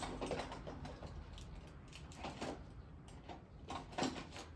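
Scattered small clicks and clatters of a screwdriver and other hand tools being picked up and handled, over a low steady hum.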